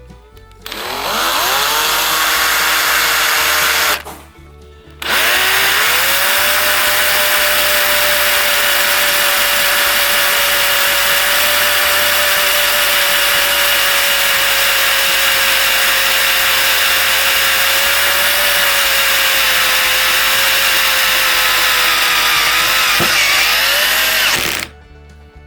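Cordless power tool motor running in two bursts. A short run about half a second in stops about four seconds in. A long steady run starts a second later, its pitch rising as it spins up, dipping slightly near the end, then stopping.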